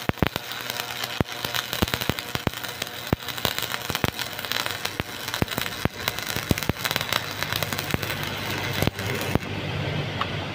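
Stick welding with a 200-amp transformer-type welder: the flux-coated electrode's arc crackles and sputters steadily with dense sharp pops. The arc cuts off near the end, leaving a low steady hum.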